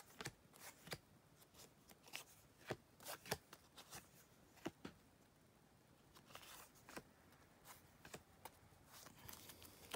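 Faint, scattered light clicks and rustles of baseball cards being handled and slipped into plastic binder pages.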